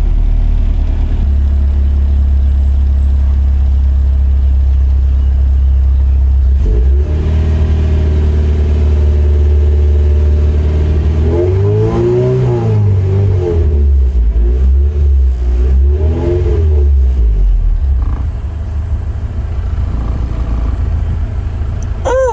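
Honda Civic EF four-cylinder engine idling while warming up, with a steady low running note. In the middle the engine speed rises and falls twice before settling back to idle.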